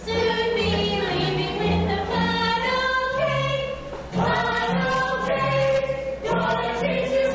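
A woman singing a stage song over a recorded backing track with a bouncing bass line. The sung phrases break briefly about four seconds in.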